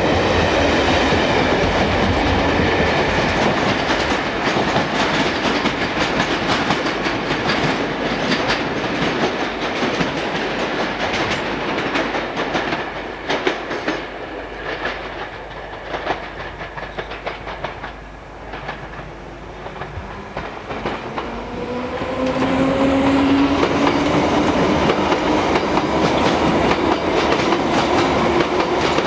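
Electric multiple unit running along the platform, its wheels clicking over the rail joints, fading out about halfway through. From about two-thirds of the way in, a London Underground train's traction motors whine, rising steadily in pitch as it accelerates.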